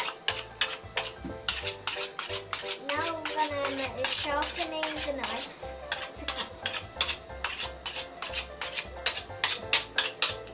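A kitchen knife being sharpened: the blade is drawn quickly and repeatedly against a sharpener, making scraping metal strokes at about four a second.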